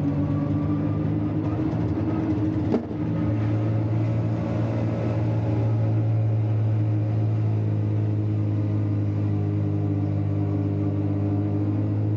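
Piaggio Ape three-wheeler's small engine running under way, heard from inside its cab. About three seconds in there is a short click, and the engine note then drops to a lower pitch and holds steady.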